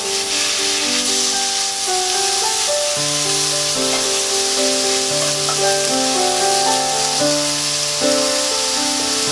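Seasoned sliced beef and onions sizzling in oil in a frying pan, under background music of held notes with a bass line coming in about three seconds in.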